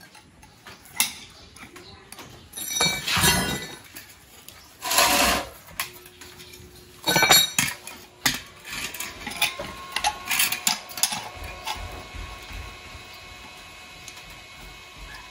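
Steel pieces (tube, plate, angle iron) clinking and scraping against each other and the concrete floor as they are handled and set in place, with sharp metal clicks as locking pliers are clamped on. There are three louder scraping bursts, about 3, 5 and 7 seconds in.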